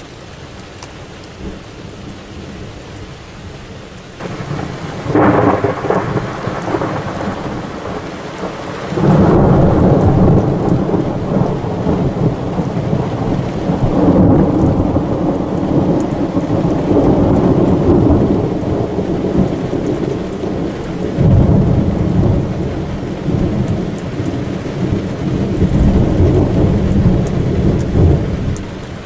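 Thunder rolling over steady rain in a thunderstorm. A first clap comes about five seconds in, then a louder peal about nine seconds in that rumbles on with several swells and dies away near the end.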